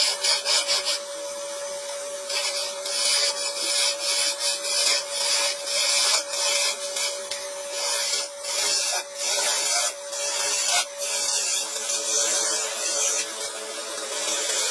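Wood lathe running with a steady hum while a hand-held chisel cuts a spinning wooden blank. The scraping of tool on wood comes and goes in repeated passes over the hum.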